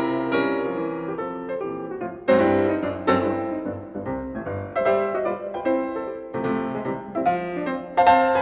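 Solo piano music: struck chords and melody notes that ring and fade, with fresh phrases entering about two and three seconds in.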